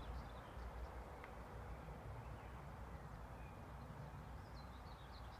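Outdoor ambience: wind rumbling on the microphone, with a few short bird chirps, most of them near the end.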